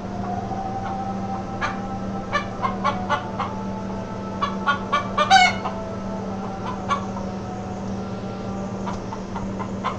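A chicken clucking in short, separate calls. They come in two bursts, the loudest call about halfway through, over a steady low hum.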